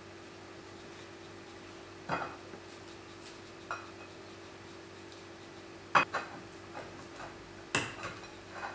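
A handful of separate sharp clinks and knocks of a fork and a plate on a kitchen counter, the loudest about six seconds in, over a steady low hum.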